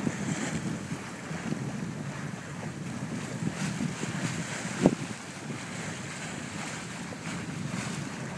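Wind buffeting the microphone and water rushing along the hull of a Hanse 400 sailing yacht under sail, with one short knock about five seconds in.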